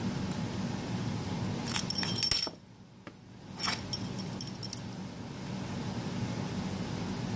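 Small metal objects clinking and clicking in two short clusters of bright, sharp ticks, over a steady low hum, with an abrupt drop to near silence for about a second between the clusters.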